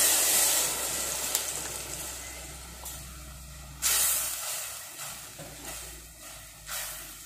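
Tamarind pulp sizzling and hissing in hot oil with cumin seeds in a steel saucepan as it is stirred with a spatula. The sizzle fades gradually, with a fresh burst about four seconds in.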